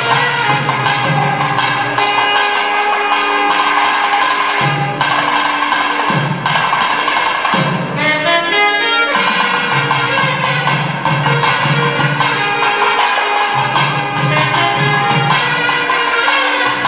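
Nadaswaram and thavil temple music: a loud, reedy wind instrument plays a held, ornamented melody over steady drum strokes, with a fast warbling trill about halfway through.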